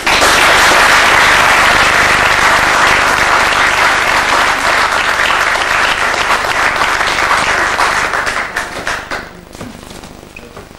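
Audience applauding, starting at once and holding steady, then thinning to a few scattered claps and dying out about nine seconds in.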